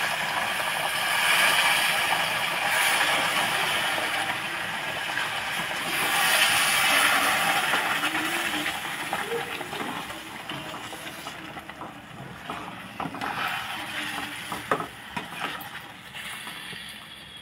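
Hot jaggery water poured into semolina roasted in ghee, sizzling and hissing loudly as it steams. The hiss gradually dies down as the semolina soaks up the liquid, and a perforated metal spoon stirring the pan clinks against it a few times in the second half.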